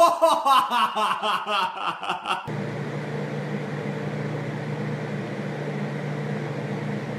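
People laughing, with rapid bursts of chuckles. This cuts off abruptly to a steady, even mechanical hum.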